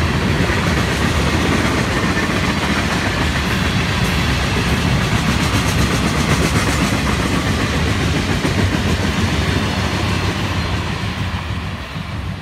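Freight cars of a Florida East Coast Railway train rolling past close by: a steady rumble and rattle of steel wheels on the rails. It fades near the end as the last cars move off.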